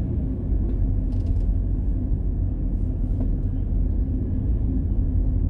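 Inside a slowly moving car: steady low engine and road rumble, with a couple of faint clicks or creaks.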